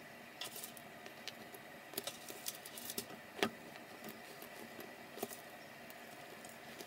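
Scattered clicks and light taps of metal tongs handling crusty sesame-covered Turkish bagels and setting them on a ceramic plate, the sharpest click about three and a half seconds in.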